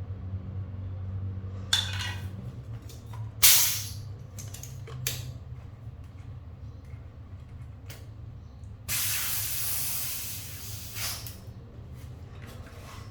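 Air hissing in several short bursts, then one longer hiss of about two seconds, over a steady low hum.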